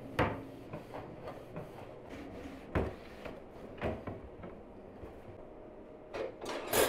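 Cloth rubbing over kitchen cabinet fronts and metal drawer handles, with a few light knocks scattered through, and a louder clatter near the end.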